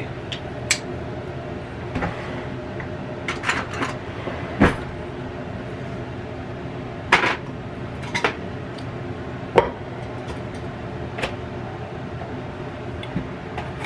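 Steady hum of a Cosori air fryer oven's fan running, with scattered sharp clicks and knocks from kitchen items being handled on the counter.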